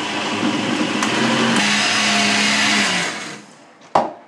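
Braun countertop blender running steadily, churning oats, banana and water into a thick shake. It is switched off about three seconds in and spins down. A single sharp clack comes near the end as the lid comes off the jug.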